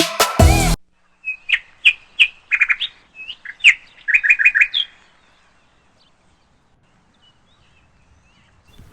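Sparrows chirping: a string of short, sharp chirps over about four seconds, some coming in quick runs of three or four.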